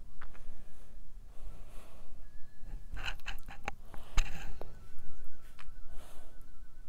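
Children breathing and rustling, with a few short clicks about three and four seconds in.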